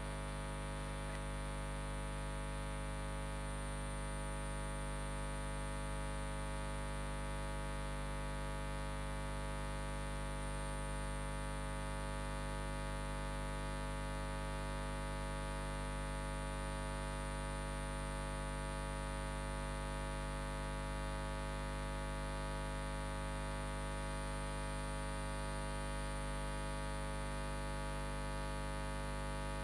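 Steady electrical mains hum with a buzzing edge, unchanging and with no other sound over it.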